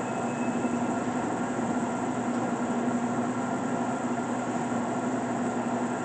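LeBlond Regal 24-inch sliding gap bed lathe running under power, its spindle and headstock gearing turning with a steady hum and a constant low tone.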